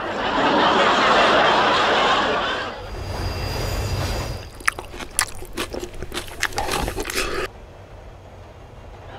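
A train rushing through a tunnel makes a loud, even noise that dies away after about three seconds. About five seconds in, a quick run of crunches and clicks lasts about three seconds: food being grabbed and eaten in the dark.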